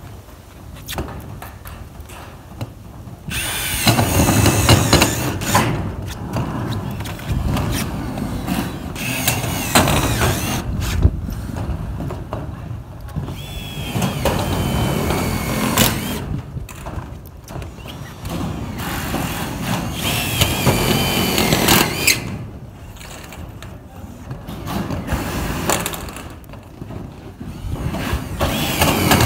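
Milwaukee M18 cordless driver running in bursts of about two seconds each, about five times, as it drives screws through corrugated metal roofing sheets. Each burst has a whining motor pitch over the grinding of the screw cutting into the metal.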